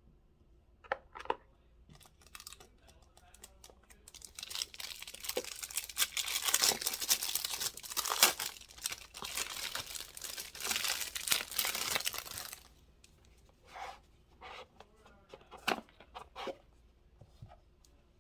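Packaging being torn open and crinkled by hand: a dense crackling stretch of several seconds that stops abruptly, with a few light clicks and taps before and after.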